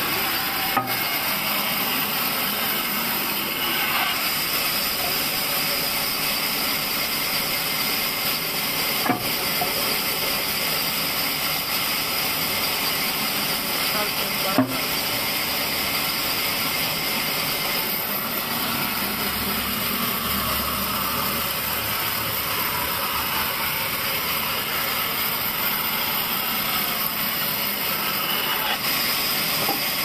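Large vertical band saw ripping a pine plank, the blade cutting through the wood with a steady hiss. Three short sharp knocks stand out, about a second in, at about nine seconds and near the middle.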